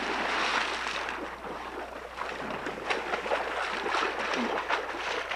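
Water splashing hard and repeatedly as a person thrashes through shallow water, with many sharp splashes over a steady wash of spray.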